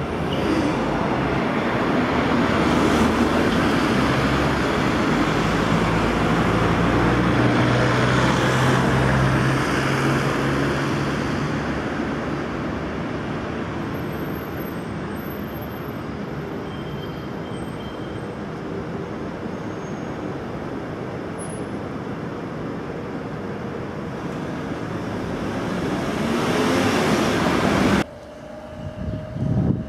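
Road traffic noise: a motor vehicle's engine hum and rushing noise that swell, ease off and swell again, then cut off suddenly near the end.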